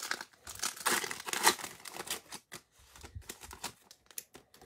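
Plastic trading-card pack wrapper being torn open and crinkled by hand: a run of irregular crackling rustles, loudest in the first second and a half, then sparser.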